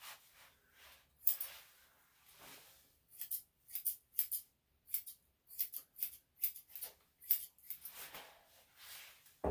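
Grooming scissors snipping through a small dog's coat: a quick, irregular run of short crisp cuts, often two or three a second, starting about a second in.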